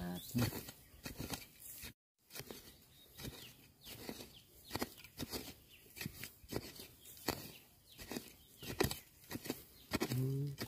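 Rustling and irregular sharp snaps and cracks of dry bamboo litter and stalks as bamboo shoots are pushed through and broken off by hand.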